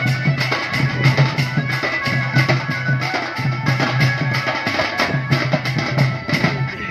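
Live Dhemsa dance drumming: shoulder-slung barrel drums beaten in a fast, even rhythm of about four strokes a second, with a steady high tone running above the beat.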